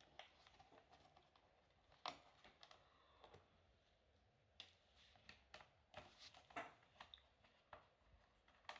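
Faint, scattered light clicks and taps of a small screwdriver and tiny screws being taken out of a laptop's bottom case and set down.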